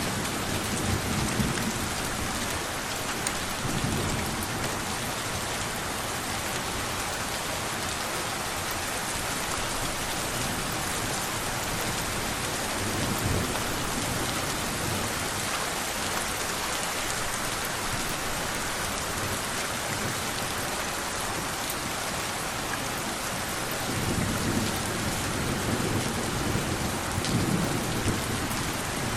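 Steady rain with several low rolls of thunder: brief rumbles near the start and around the middle, and a longer one near the end.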